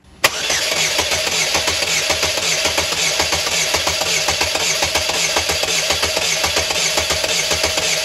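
2008 Chevrolet Cobalt's 2.2 L Ecotec four-cylinder engine cranking over on the starter during a compression test, starting with a click about a quarter second in and going on with a steady pulsing rhythm. The engine has no compression on cylinder number two.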